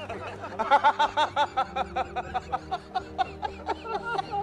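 A man laughing hard in rapid, repeated high-pitched bursts, with faint steady music underneath.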